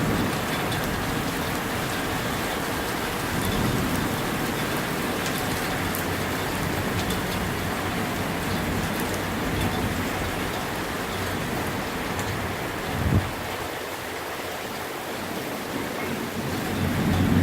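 Steady heavy rain falling, with low rumbles of distant thunder swelling and fading, and a short low thump about three quarters of the way through.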